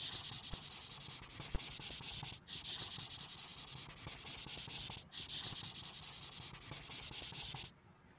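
Pencil scribbling rapidly on paper, a drawing sound effect: fast, even scratching strokes in three runs, with short breaks about two and a half and five seconds in, stopping shortly before the end.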